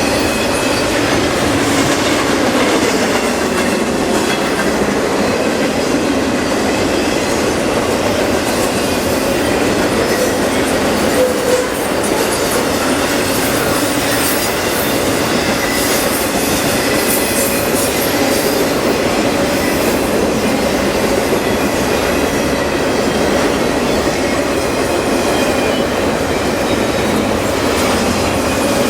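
Freight train cars rolling steadily past: continuous wheel-on-rail noise with clickety-clack over the rail joints and thin, steady squealing tones from the wheels.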